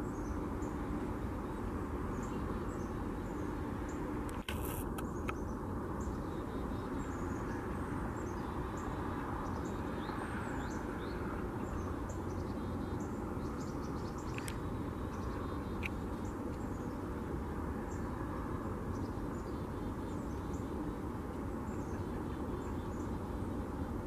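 Steady low outdoor rumble, with faint, short, high bird chirps scattered through it and a single sharp click about four and a half seconds in.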